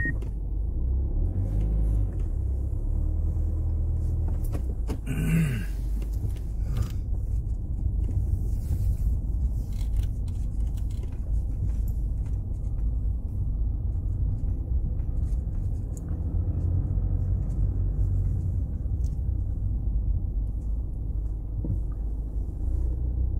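Low steady rumble of engine and tyre noise heard inside a car moving slowly, with a short rush of noise about five seconds in.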